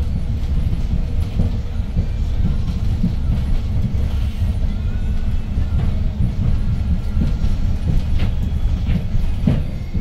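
Cabin noise of a 2012 Hyundai New Super Aerocity city bus under way: a steady low rumble from its C6AE compressed-natural-gas engine and the road, with a few short rattles near the end.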